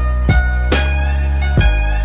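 Background music: sustained pitched notes over a steady bass, with low thumping beats about a third of a second in and again near the end.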